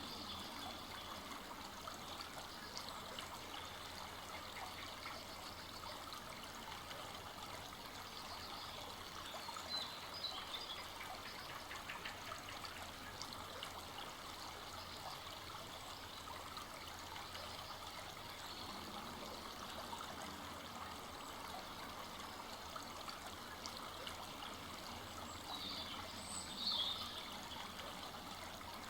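Full-flowing forest brook running steadily over its bed, with a couple of brief high chirps about ten seconds in and near the end.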